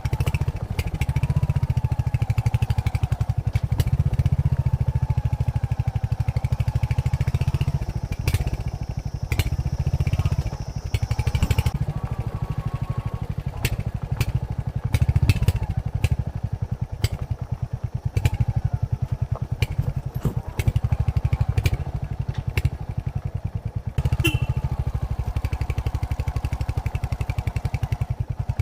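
Royal Enfield Hunter 350's single-cylinder engine running through its stock exhaust under way, a steady rapid low thump, with sharp clicks scattered throughout. It drops back to a quieter run for a stretch past the middle, then picks up again.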